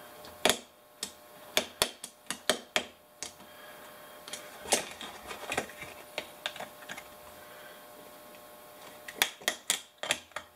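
Sharp clicks and taps of steel needle-nose pliers against a printed circuit board as a thick-legged IC chip is wiggled and twisted off it. The clicks come in scattered clusters: several in the first three seconds, a few around the middle, and a quick run near the end.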